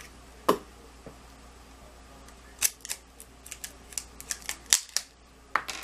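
Sharp plastic and cardboard clicks and crackles of a boxed blush kit being handled and pried at, one click near the start and then a quicker irregular run in the second half.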